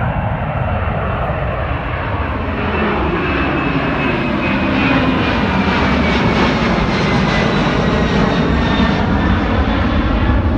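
Twin-engine jet airliner climbing overhead just after takeoff: a loud, steady engine roar that builds as it passes, with a high whine that slowly falls in pitch.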